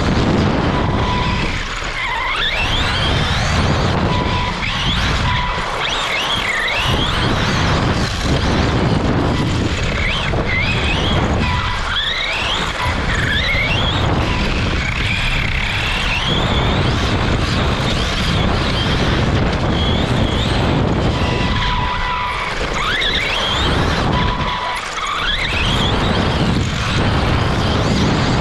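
Onboard sound of a Tekno EB48 2.0 electric 1/8-scale RC buggy at speed: the brushless motor and drivetrain whine repeatedly climbs in pitch as it accelerates and drops away into the corners, over a constant rattle and rumble of the chassis and tyres on the track surface.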